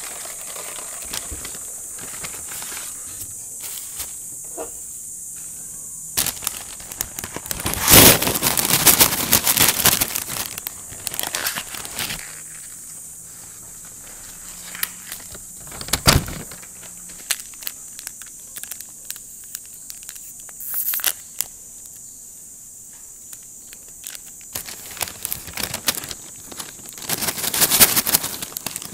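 Paper food packaging crinkling and rustling in irregular bursts as burger wrappers and a paper fries bag are handled and pulled open, with the busiest rustling about eight seconds in and again near the end. One sharp knock comes around the middle.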